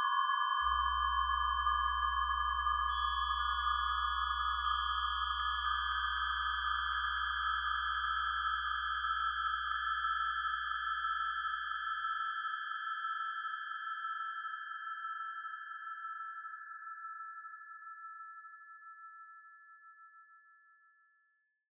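SonoGene's 250-voice synthesizer, each voice standing for one cell, playing a cluster of steady high sine tones that drop out one by one and fade to silence, over a low hum that fades away about halfway through.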